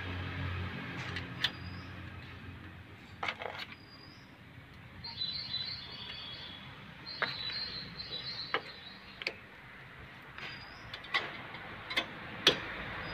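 Sharp metal clicks and taps as a brake shoe hold-down clip is pressed and worked into place on a rear drum brake backing plate, about nine clicks spread irregularly, the loudest near the end. Small birds chirp and twitter in the background.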